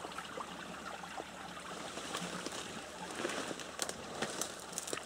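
Water trickling through a beaver dam: a faint, steady flow, with a few brief rustles of brush in the second half.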